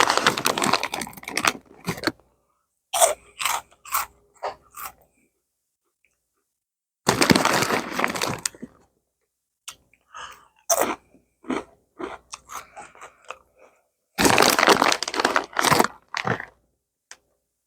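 Crunchy Cheetos bitten and chewed close to the microphone: three longer bouts of dense crunching with short crackly chews in between.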